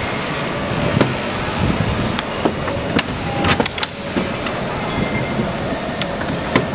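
Aluminium stage legs clinking and knocking against metal as they are set down and pushed into the stage deck's leg holders: a handful of sharp metallic clicks, a quick cluster of them about halfway through, over a steady background noise.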